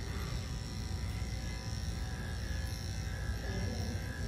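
Electric dog-grooming clippers running with a steady buzz.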